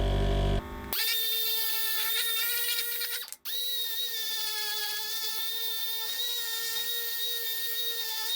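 Electric drill running with a steady, high-pitched motor whine that starts about a second in and briefly cuts out about three seconds in. A low drone sounds at the start and cuts off.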